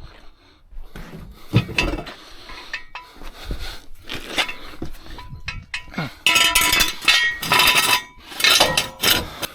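Metal objects clinking and rattling in a string of short sharp knocks, with three longer, louder rattling stretches in the last few seconds.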